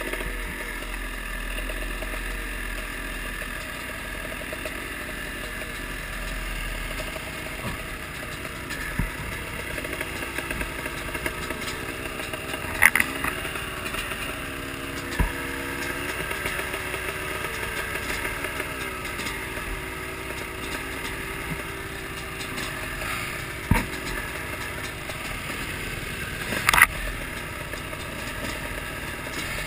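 Dirt bike engines running at idle and low revs, the engine note wavering up and down through the middle. A few sharp clicks or knocks break in, about four in all.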